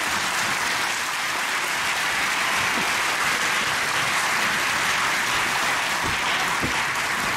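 Arena audience applauding, a steady, even clapping that carries through without a break.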